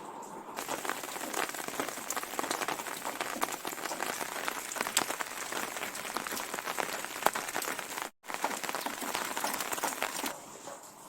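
Rain falling on a hard surface: a dense hiss of many small drop ticks. It starts suddenly, breaks off for an instant about eight seconds in, then resumes.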